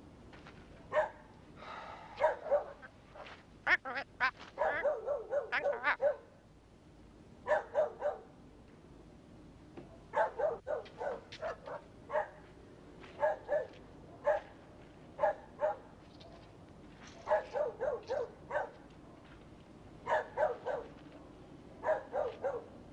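A dog barking in quick runs of short yaps, with pauses of a second or two between the runs.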